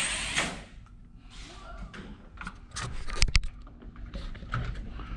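Slot drag car's small electric motor whirring down the strip in a short run that ends about half a second in. Light rattles follow, with two sharp clicks a little past three seconds.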